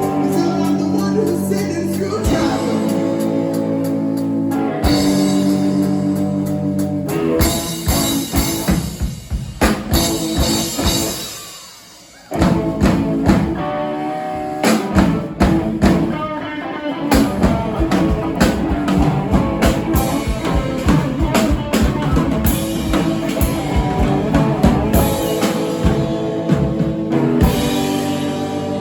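Rock band playing: electric guitar, drum kit and singing, with a brief break about halfway through before the drums come back in.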